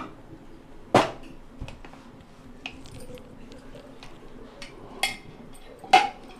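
Aluminium pressure cooker being handled: a sharp metallic clank about a second in, a few light clicks, then two more knocks near the end.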